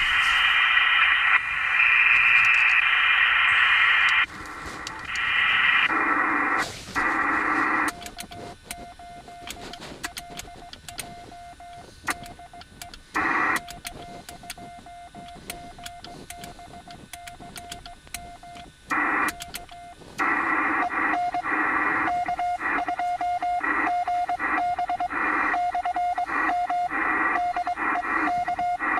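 Receiver audio from a Yaesu FT-897 ham transceiver on the 40-meter band, after the operator has handed over: bursts of band-limited static hiss, and a steady mid-pitched whistling tone that drops out and returns. From about 20 seconds in the tone turns choppy, with the hiss back under it.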